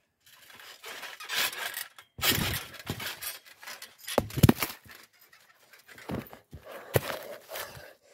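Rustling and scraping handling noise from a camera being jostled and dropped, with several knocks; the loudest is a thump about four and a half seconds in.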